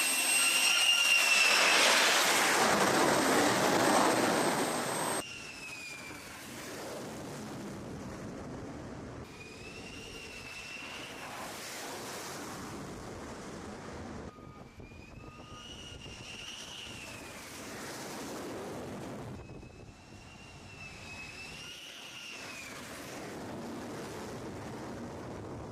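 Carrier jet fighters' engines running: loud for the first five seconds, then quieter stretches where a high turbine whine rises and falls in pitch, repeating across several cuts.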